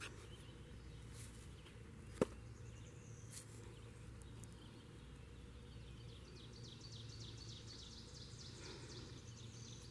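Faint outdoor ambience with a bird singing in the background: a rapid trill of short repeated high notes through the second half. A single sharp click about two seconds in.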